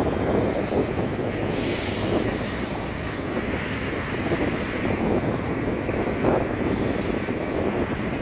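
Wind buffeting the microphone at the seashore: a loud, unsteady low rumble, with the sea's surf and traffic noise blended underneath.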